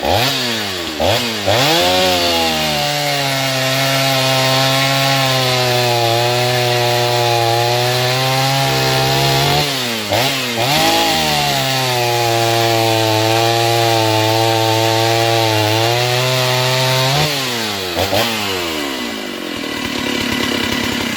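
Stihl 038 two-stroke chainsaw revved to full throttle and held there through two long cuts in wood of about six seconds each. It drops back toward idle about ten seconds in and again near the end, with a few quick throttle blips before settling.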